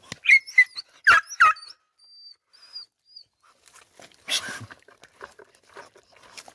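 Hunting dogs at a paca's hole in a log, giving several short high whines in the first second and a half, excited by the paca hidden inside. A loud snuffling rush about four seconds in, then sniffing and scratching at the wood and leaf litter.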